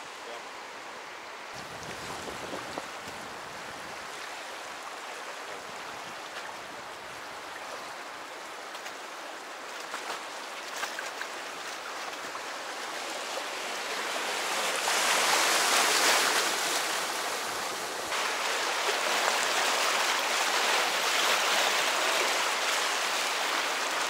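Rushing river water, a steady hiss that swells louder about two-thirds of the way through.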